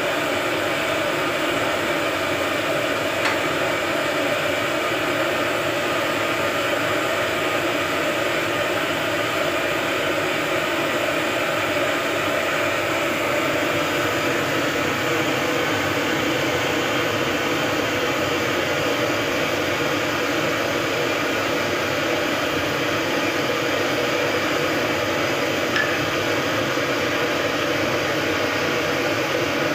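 Intestines deep-frying in a wide pan of hot oil: a steady, even sizzle of bubbling oil.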